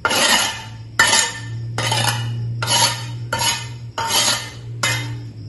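Metal spatula scraping ground chili sambal off a stone mortar (cobek), in repeated strokes a little under a second apart. A steady low hum runs underneath.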